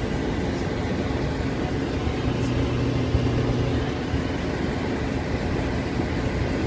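Whirlpool electric clothes dryer running: a steady low rumble of the motor and turning drum, with a deeper hum swelling for about a second and a half a couple of seconds in.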